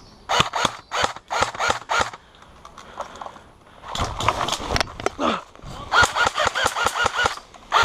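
Airsoft electric rifle firing quick shots in several short strings, each shot a sharp clack with a brief mechanical whir of the gearbox.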